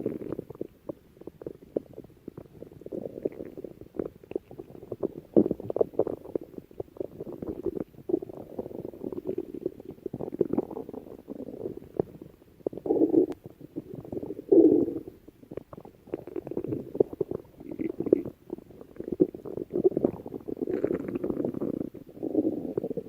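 Human stomach growling: a continuous run of irregular low gurgles and rumbles, with two louder swells a little past the middle.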